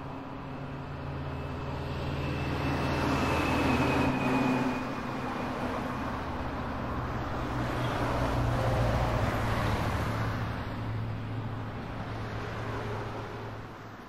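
Urban street ambience: traffic passing with a steady low hum underneath, swelling twice and starting to fade near the end.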